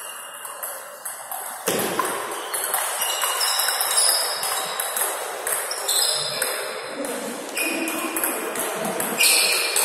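Table tennis rally: the ball clicking off the rackets and bouncing on the Stiga table in a quick, irregular run of sharp hits.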